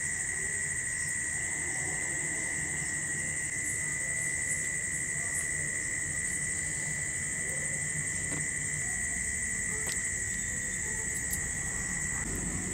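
Night insects trilling in a steady, unbroken chorus at two high pitches, over a low background hum.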